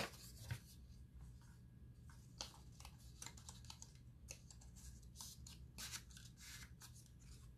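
Near silence with faint, scattered clicks and rustles of paper and cardstock being handled and trimmed.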